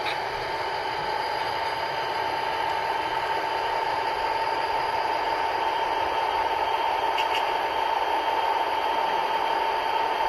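HO-scale Rio Grande tunnel motor locomotive's Soundtraxx Tsunami sound decoder playing a steady diesel engine sound through its small onboard speaker, with a high steady whine, growing slowly louder as the locomotive approaches.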